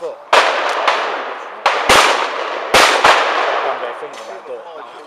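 Shotgun shots at a clay shoot: three loud reports in the first three seconds, each ringing out with a long echoing tail, and another shot right at the end.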